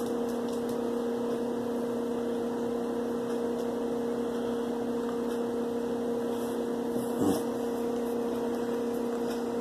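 A steady electrical hum with an even pitch, and one brief rising sound about seven seconds in.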